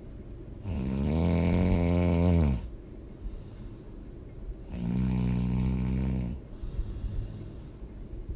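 A person snoring loudly: two long, rasping, pitched snores on the in-breath, about four seconds apart, with quieter breathing between them.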